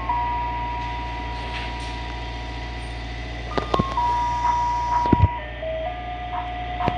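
An ice cream truck's jingle playing from its rooftop loudspeakers: a simple electronic tune of single notes, with one long held note, then a few shorter ones. A low hum runs underneath, and a few sharp clicks come around the middle.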